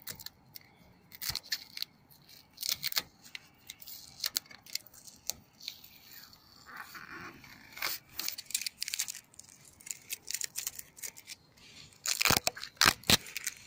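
Hands rubbing and tapping the plastic cable trunking and solar panel frame: scattered scratchy rustles and light clicks, with a louder flurry near the end.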